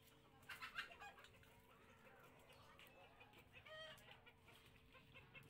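Faint clucking of chickens: a few short calls about half a second in and again near four seconds, over a faint steady hum.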